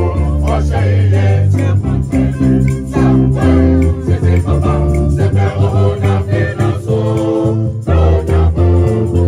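Mixed choir singing to a music accompaniment with a strong bass line and percussion.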